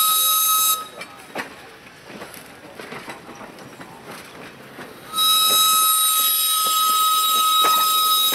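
Single-chime steam whistle of the replica Central Pacific 'Leviathan' 4-4-0 locomotive blowing one steady note: a blast that stops just under a second in, then a second long blast starting about five seconds in. In between, passenger coaches roll past with their wheels clicking over the rail joints.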